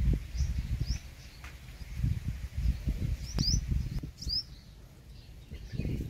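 A few short, high-pitched chirps from a purple sunbird, the clearest two around the middle, over an uneven low rumbling that comes and goes and is the loudest sound.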